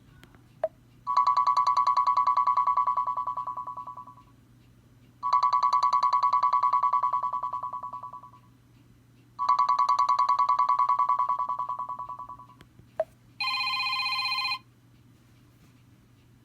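Schok Classic flip phone playing a trilling electronic ringtone: three rings of about three seconds each, every rapidly pulsing tone fading out at its end. A short click comes before the first ring and another just before a different ringtone starts near the end, a steady multi-pitched beep lasting about a second.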